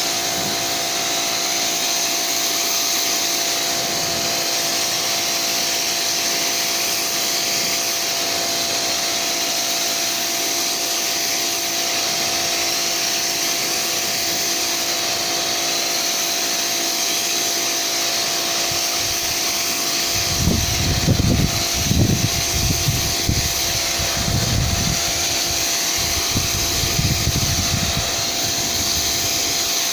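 Vacuum cleaner running steadily with a high hiss and a motor whine, cleaning the carpet covering of subwoofer cabinets. About two-thirds of the way through come a string of low thuds and rumbles.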